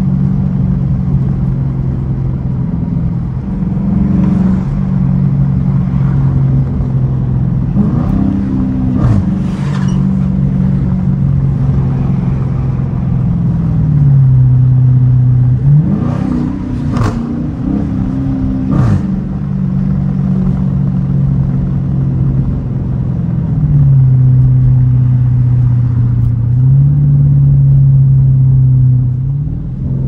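Dodge Challenger R/T's 5.7-litre Hemi V8 running at low city-driving speed, heard from inside the cabin. The engine note dips and climbs several times as the car eases off and picks up again, with a few quick rises and falls in pitch and a few short sharp sounds over the top.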